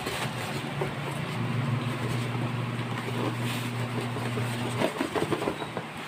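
Plastic wrapping and styrofoam packing rustling and crackling as they are pulled out of a cardboard box, with a burst of sharp crackles about five seconds in. A steady low hum runs underneath and drops out near the end.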